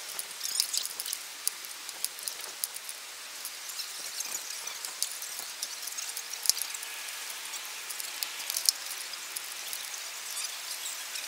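Steady hiss with many scattered clicks and ticks from a bicycle rolling over city pavement, with a few sharper knocks.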